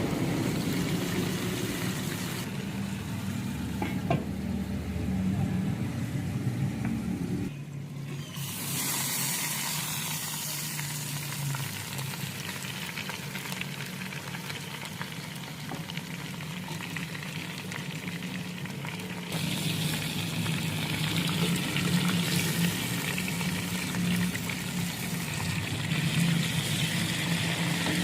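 Food frying and sizzling in a pan over a steady low hum, the sizzle changing abruptly a few times.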